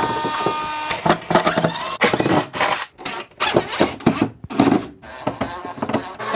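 Boat interior woodwork being pried and broken out: irregular cracking, creaking and knocks of wood coming apart.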